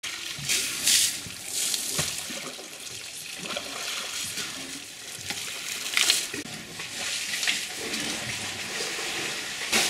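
Water splashing and gushing at a waterhole as African elephants drink, with several short, sudden splashes over a steady trickle.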